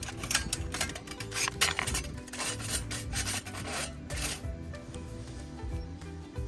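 Rapid rasping scrapes, stroke after stroke, that stop about four seconds in, over quiet background music.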